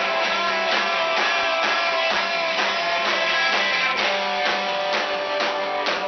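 Live band playing loudly, with a steady drum beat of about two strokes a second under held guitar notes.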